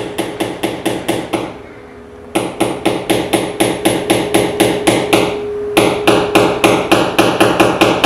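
Rapid, regular knocking like hammering, about five sharp strokes a second, in three runs broken by two short pauses, over a faint steady hum.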